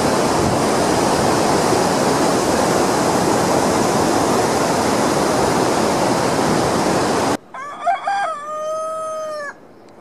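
Rushing mountain stream and small waterfall, a loud steady rush of water that cuts off abruptly about seven seconds in. Then a rooster crows once, a long call lasting about two seconds.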